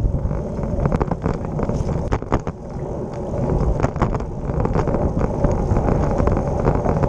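Wind rumbling on a handlebar-mounted action camera's microphone while a road bike rolls along, with tyre and road noise and irregular rattling clicks from the bike over the road surface.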